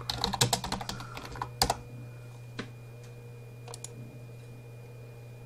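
Typing on a computer keyboard: a quick run of keystrokes that stops about two seconds in, then a few single clicks, over a steady low electrical hum.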